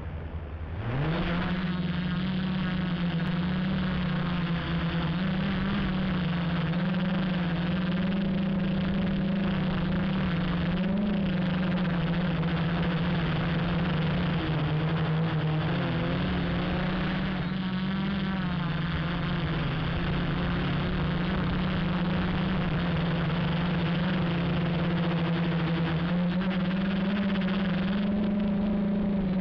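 Q450 quadcopter's motors and propellers spinning up with a rising whine about a second in, then a steady, loud buzz as it lifts off and flies, the pitch wavering slightly with throttle, heard from the camera mounted on the aircraft.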